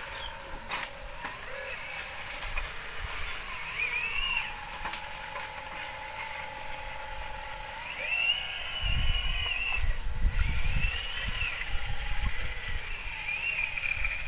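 Small electric motors of RC construction vehicles whining, several times rising in pitch, holding and falling again as they are driven, over a steady lower motor hum. Low thumps and rumble come through about two thirds of the way in.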